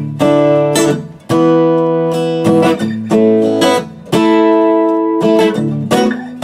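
Koa dreadnought acoustic guitar strummed with a pick, heard through its K&K pickup system into a Lab Series amplifier. Full chords are struck about once a second and each is left to ring.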